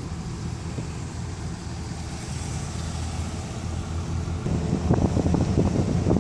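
Steady low rumble of a slow-moving car, with irregular buffeting of wind on the microphone getting louder from about four and a half seconds in.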